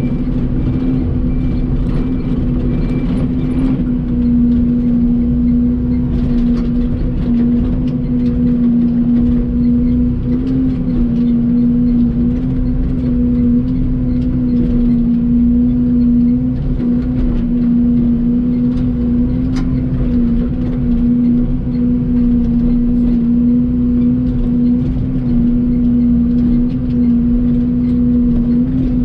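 Excavator's diesel engine running steadily under working throttle, a constant loud drone whose pitch dips slightly now and then.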